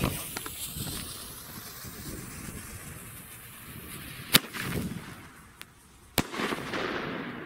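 Small 'Double Thunder' firework hissing as it burns and throws sparks, then two sharp bangs a little under two seconds apart, the first about four seconds in, with hissing between and after.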